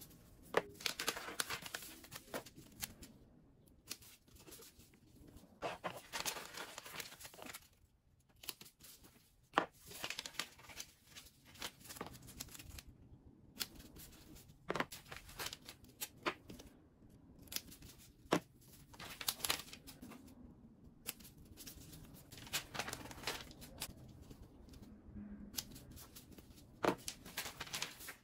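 Paper labels being peeled from a sheet and pressed onto plastic tubs by gloved hands: irregular rustling, tearing and crinkling of paper, with a few sharp clicks.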